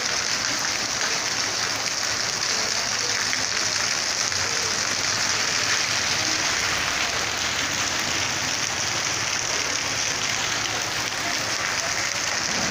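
Heavy rain pouring down steadily, a dense even hiss of downpour.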